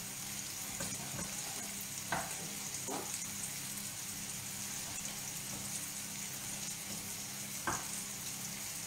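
Diced zucchini sizzling steadily in oil in a frying pan on a gas hob, with three short knocks of a knife on a wooden cutting board.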